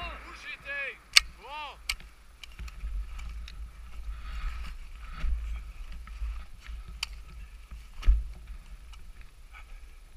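Handling and movement noise from a soldier carrying a rifle over snow, picked up by a body-worn camera as a low rumble. Several sharp cracks cut through it, the loudest just after a second in, and another with a low thump about eight seconds in.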